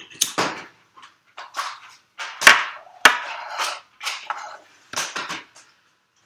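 Irregular clatter of short knocks and scrapes from objects being handled, with two sharper, louder knocks about two and a half and three seconds in.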